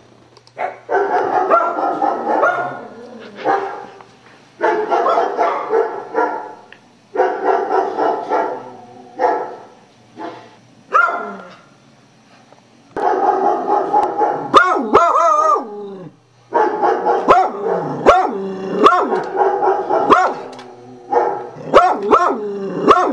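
Beagle barking and baying repeatedly, the barks coming thick and fast in the second half. Long stretches of computer sound effects play between and under the barks.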